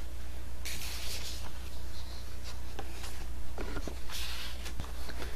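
Steady low electrical hum with hiss and a few faint clicks: the background noise of the recording, with no voice.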